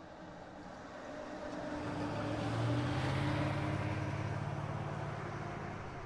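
A car driving past: its engine note swells to a peak about three seconds in, then fades away.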